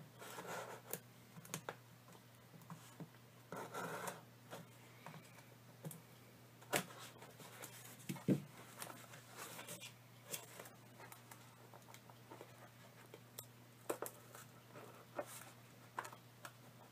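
Pocketknife blade scraping and slitting the tape on a cardboard mailing box: faint, intermittent scratches with a few sharp clicks and taps.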